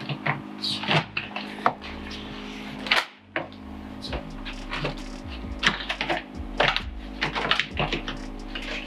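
Irregular plastic clicks, taps and knocks as a Jeep Wrangler JK's interior door panel is handled and its plastic retaining clips are pushed toward their holes in the door. A steady low hum runs underneath.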